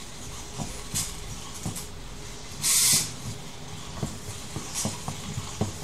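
Hexapod robot walking on a wooden floor: its micro servos click and grind irregularly as the legs step, the gears worn down, with the feet tapping the floor. Near the middle comes a short loud hissing burst.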